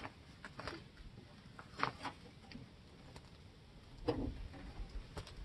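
Scattered light knocks and clicks with faint rustling, as the snow cab's metal frame tubes and fabric are handled and worked into the tractor's supports. The sharpest knocks come about two seconds in and about four seconds in, the second with a dull thud.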